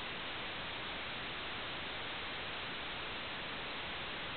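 Steady, featureless static hiss, even in level and without any engine or water sounds, the kind an analog FPV video link's audio channel records when it carries no microphone sound.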